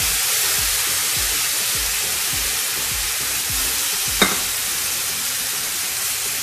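Ground meat and onions sizzling in a nonstick frying pan with a little water just added, stirred with a spatula in regular strokes about twice a second. There is one sharp knock about four seconds in.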